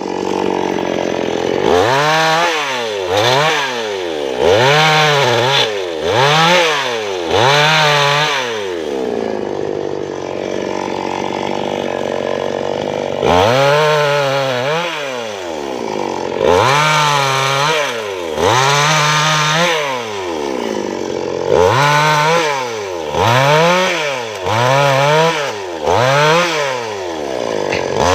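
Two-stroke Maestro Plus CS6500L petrol chainsaw cutting through felled teak branches. It revs up and drops back about once a second in short runs of bursts, with steadier lower running in between.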